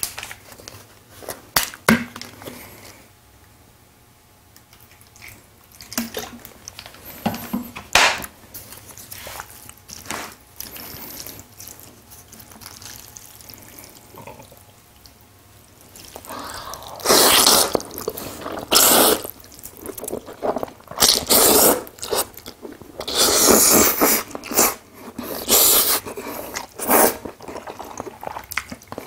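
Close-miked eating of jajangmyeon: a few light clicks and scrapes of chopsticks working the saucy noodles in the first half, then loud wet slurps in long, closely spaced bursts from about halfway through.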